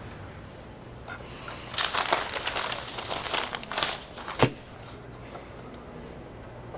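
Rustling and crinkling for about two and a half seconds, ending in a single sharp click.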